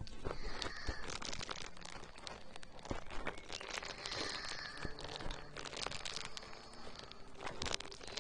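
Close-miked ASMR crackling and crinkling: a dense, continuous stream of small sharp clicks and rustles right on the microphone, starting abruptly.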